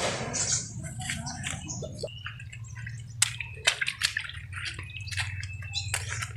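Water sloshing and dripping, with a splash at the start and then scattered small splashes and taps over a low steady hum.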